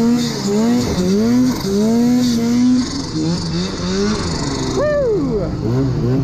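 Arctic Cat mountain snowmobile engine revving up and down repeatedly as the sled pushes through deep powder, with a sharp rev near five seconds in. A steady hiss runs under it and stops about five seconds in.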